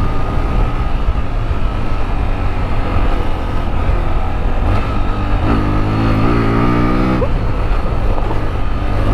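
Motorcycle engine running steadily while riding a dirt track. About halfway through it revs up, rising in pitch for a couple of seconds before the throttle is closed again.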